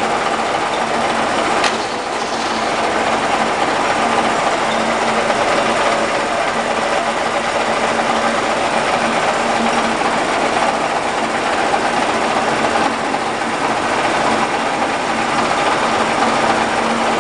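Model 163 (DIP300) engine lathe running steadily: a continuous mechanical whir with a constant low hum, and one short click about two seconds in.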